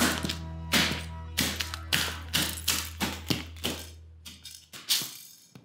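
Work boots stomping a cassette tape on a concrete floor: about a dozen sharp stomps in quick succession, thinning out near the end. Background music plays underneath and fades out about three-quarters of the way through.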